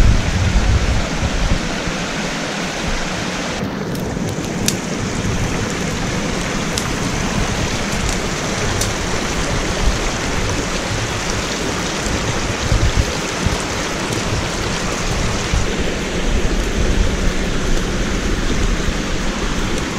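Steady rush of a small mountain stream tumbling down a rocky cascade, with a few sharp clicks between about four and nine seconds in.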